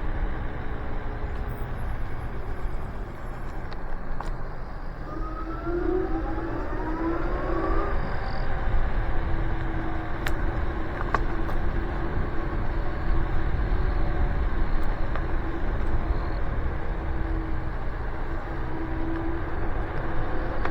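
Nanrobot Lightning 2.0 electric scooter riding at speed, its dual 800-watt motors whining and rising in pitch as it speeds up between about five and eight seconds in, under a heavy rush of wind on the microphone.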